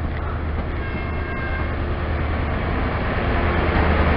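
First Great Western InterCity 125 (HST) departing, its Mark 3 coaches rolling past on the platform line: a steady low engine hum under wheel-on-rail rumble that grows louder toward the end. A faint high squeal comes in briefly about a second in.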